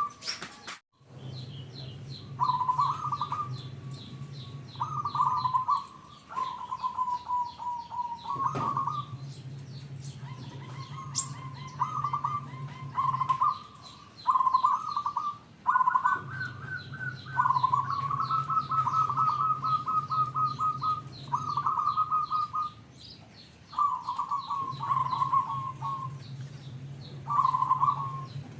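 Zebra dove (perkutut) cooing over and over, each call a quick run of rapid staccato notes, with shorter high chirps from other small birds between them. A low hum comes and goes underneath.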